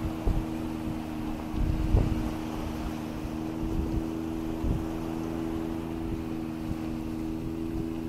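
A boat engine running with a steady low drone, with a few short low thumps, the loudest about two seconds in.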